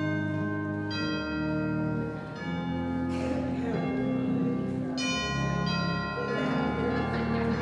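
Church organ playing the postlude: sustained chords that change every second or so. Congregation chatter rises under it near the end.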